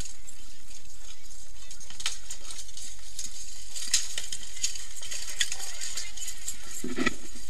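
Steel weapons and shields striking plate armour and helmets in an armoured mass melee: scattered sharp metallic clanks, with a heavier thud near the end as fighters crash against the wooden fence.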